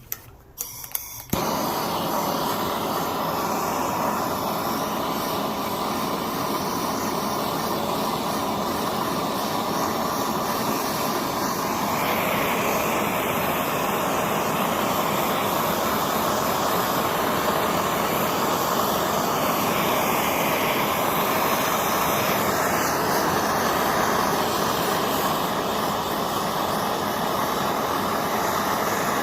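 A few clicks, then a MAPP gas torch lights about a second in and burns with a steady, loud hiss, heating the flywheel of a Suzuki GSX-R600 engine to loosen it from the crankshaft, where it may be seized.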